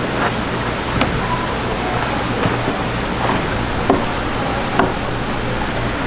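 A few sharp knocks of a knife and fish on a plastic cutting board while a fish is filleted, over a steady rushing background noise.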